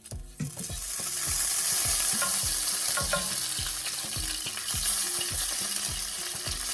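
Basted chicken quarters searing skin side down in a hot oiled pan: a loud, steady sizzle that builds over the first second and then holds.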